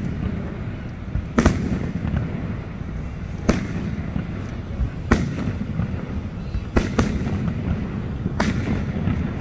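Aerial fireworks shells bursting: five sharp bangs, one every one and a half to two seconds, over a steady low rumble.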